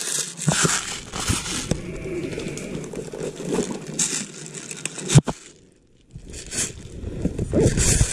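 Dry leaves rustling and crunching while airsoft gear is handled, with scattered clicks and one sharp knock about five seconds in.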